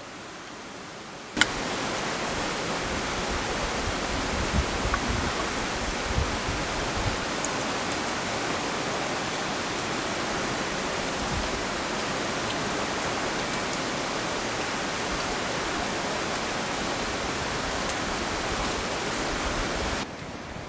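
Steady rush of water, cutting in suddenly about a second in and cutting off abruptly just before the end.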